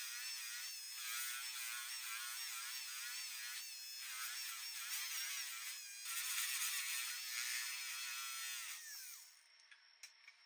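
Jeweler's rotary handpiece spinning at high speed on a silver chain ring: a high whine that wavers in pitch as the bit bears on and eases off the metal. It stops about nine seconds in, leaving a few light clicks.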